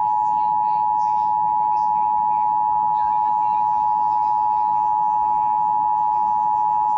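Emergency Alert System two-tone attention signal (853 Hz and 960 Hz sounded together) on AM/FM broadcast radio: one loud, steady, piercing dual tone held without a break. It signals that an emergency alert, here a National Weather Service severe thunderstorm warning, is about to be read.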